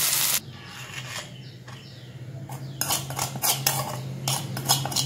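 Frying sizzle that cuts off sharply about half a second in. After a quieter stretch, from about three seconds in, a run of clinks and scrapes of a metal spoon against a dish.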